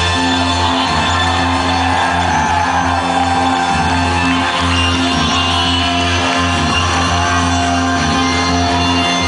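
Loud live electronic rock music from a band on stage, with a steady heavy bass line under dense synthesizer tones. It is heard from within the audience.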